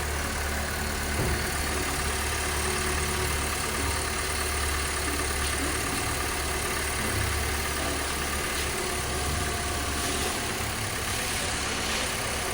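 2016 Honda Civic Rebirth engine idling steadily, fitted with a new water pump and auto tensioner. The mechanic judges it now free of the bearing and tensioner noise.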